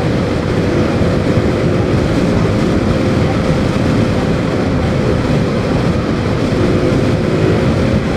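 Wind rushing over the microphone of a moving motorcycle, with the engine running steadily underneath as a faint steady hum.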